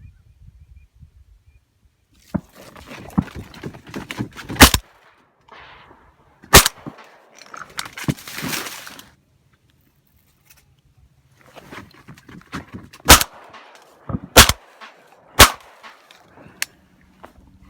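Shotgun blasts during a duck hunt: about five loud, sharp shots, two a couple of seconds apart and, after a pause of several seconds, three more in quick succession, with quieter noisy rustle between them.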